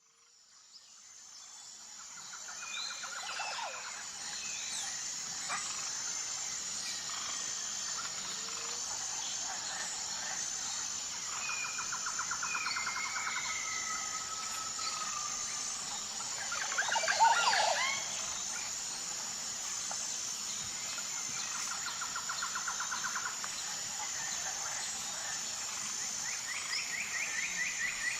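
Tropical forest ambience fading in: a steady, high, evenly pulsing insect chorus under a mix of bird calls and rapid pulsed trills, with one loud, swooping call about two thirds of the way through.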